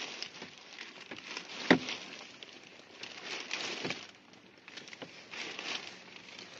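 Plastic protective seat covers crinkling and rustling as someone shifts about in a car's rear seat, with a sharp knock a little under two seconds in.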